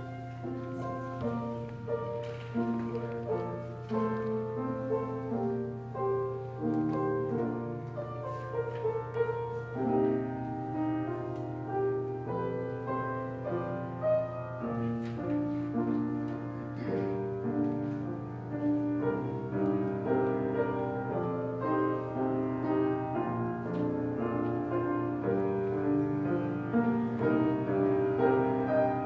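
Piano playing a slow, classical-style church prelude, with sustained, overlapping chords and a steady low hum underneath.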